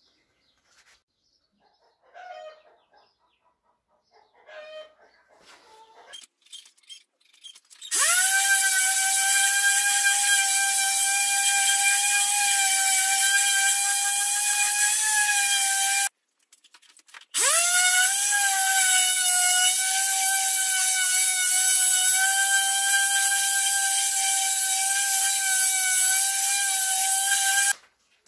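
An electric power tool motor, run twice for about eight seconds each time. Each run spins up in a fraction of a second to a steady high whine with a hiss above it, then cuts off suddenly.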